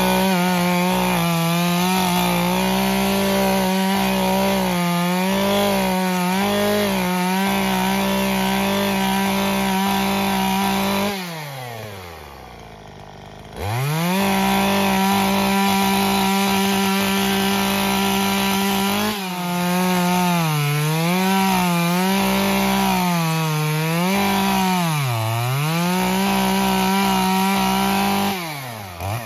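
Two-stroke chainsaw running at full throttle while bucking a fallen tree into short rounds, its pitch dipping again and again as the chain bogs down in the wood. About eleven seconds in it falls back to idle for a couple of seconds, then revs straight back up and cuts on.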